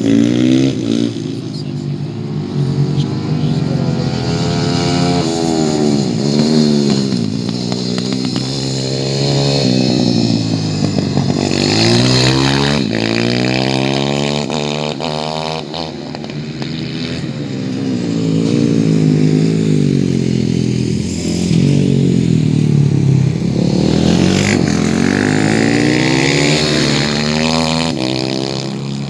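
A racing vehicle's engine on track, its pitch climbing and dropping repeatedly through the gears as it accelerates and slows, with no break in the sound.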